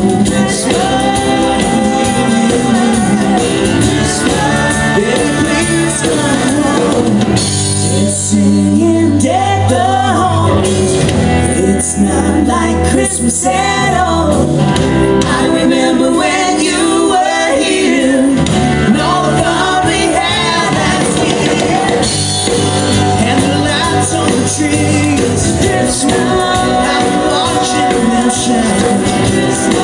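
Country band playing a song with singing, backed by drums, electric bass and acoustic guitar.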